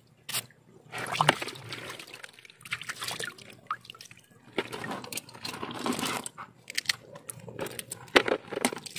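Forest crabs being scrubbed with a plastic scrub brush: irregular wet brushing strokes over the shells with small clicks, splashes and dripping water.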